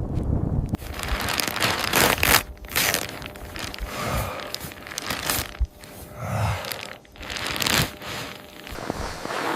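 Irregular crinkling and rustling of handled or shaken material, coming in swells every second or two with a few sharp crackles.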